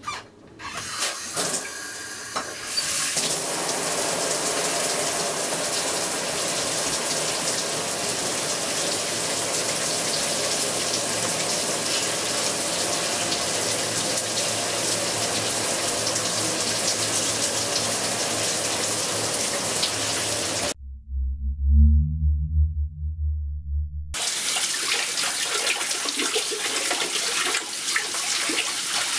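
Shower running: a steady hiss of water spray in a small tiled bathroom. About 21 seconds in, the spray sound cuts out for about three seconds and a loud deep rumble takes its place, then the spray returns, more uneven as it falls on a body.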